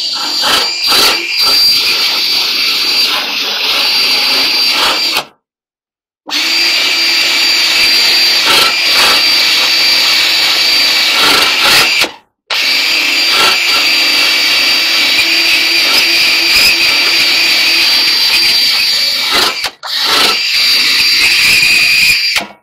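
Cordless drill spinning a wire wheel against the rim of a clothes dryer's front drum bulkhead, scrubbing off old felt: a loud, steady high whine with scraping, stopping briefly three times.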